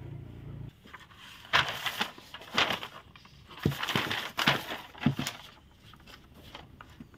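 Large sheet of stiff kraft pattern paper being unrolled and spread flat by hand, crinkling and crackling in several irregular rustles.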